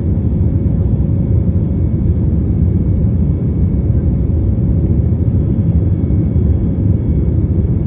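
Jet airliner cabin noise: the steady low rumble of the engines and airflow heard from inside the cabin, with a faint steady hum above it.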